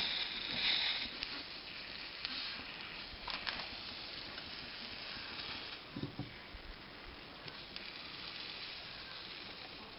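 Red-hot hatchet soldering iron hissing and sizzling against stainless steel smeared with orthophosphoric acid flux, loudest in the first second, with scattered small clicks and a low knock about six seconds in.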